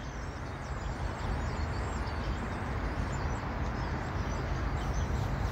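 Steady outdoor rumble and hiss, heaviest in the low end, slowly growing a little louder.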